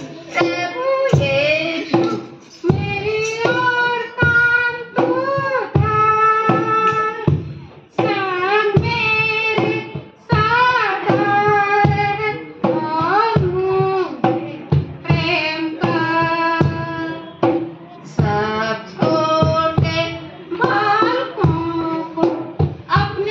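A woman singing a song into a microphone, her voice holding and sliding between notes, over instrumental accompaniment that sustains one steady note.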